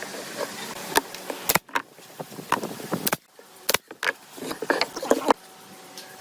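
A quick run of irregular, sharp clicks and knocks, as of hard objects being handled and set down, over a low hiss.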